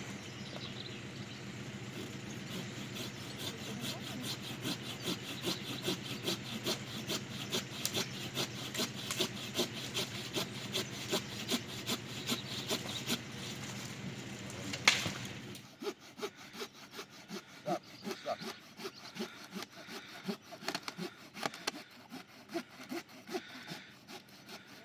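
Wood being sawn by hand: rhythmic back-and-forth strokes, about two a second. A single sharp crack about fifteen seconds in, after which the strokes go on more quietly.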